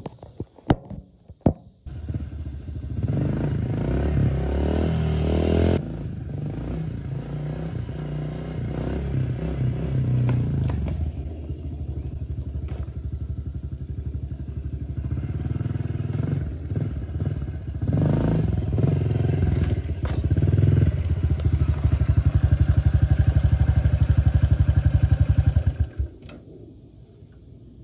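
Honda CRF pit bike's four-stroke single-cylinder engine starting up about two seconds in after a few clicks, then running as the bike rides away and back, rising and falling in level and loudest as it comes up close. It dies down suddenly near the end.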